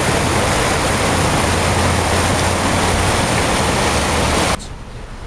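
Floodwater rushing: a loud, steady roar of river water pouring across a flooded street and over a bridge, which drops away suddenly near the end.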